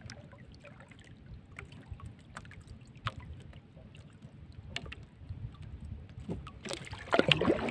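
Water lapping around a small bamboo-outrigger fishing boat at sea, with scattered light knocks and clicks. A louder burst of rustling noise comes in near the end.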